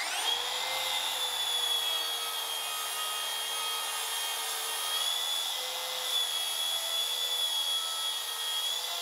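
Makita plunge track saw ripping plywood along its guide rail. The motor whines up to speed right at the start, then runs steadily through one long cut.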